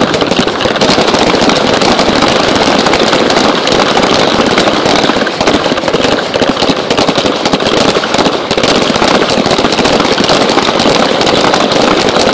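Many pistols firing rapid-fire at once along a firing line. The shots come so fast and overlap so much that they run together into a loud, continuous crackle.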